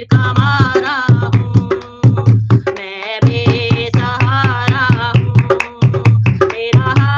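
A woman sings a Hindi devotional bhajan over a dholak played in a quick, steady rhythm, with deep booming bass strokes and sharp treble slaps. The drumming and singing break off briefly about three seconds in, then resume.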